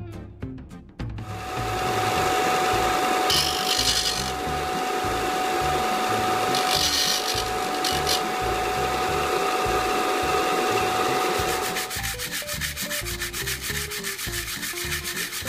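A bench disc sander starts up about a second in and runs with a steady whine while a small aluminium casting is held against it, the metal grinding on the abrasive in two harsher stretches. About 12 s in the machine stops, and the casting is rubbed back and forth by hand on sandpaper in quick, even strokes.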